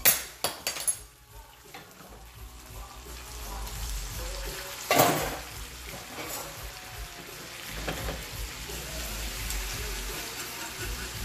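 Butter pecan syrup sizzling in a saucepan on the stove as it is stirred, with utensil clatter in the first second and a short, loud hiss about five seconds in. Water has been added to dissolve sugar that crystallized.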